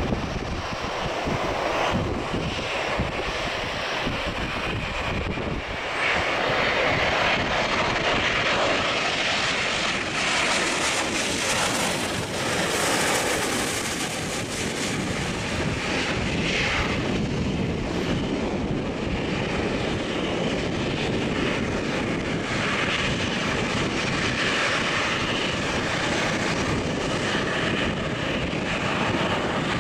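Boeing 787-8 Dreamliner's GEnx-1B turbofans on final approach: a steady jet roar that swells to a high hiss as the airliner passes overhead about halfway through, then eases as it lands and rolls out on the runway. Wind buffets the microphone throughout.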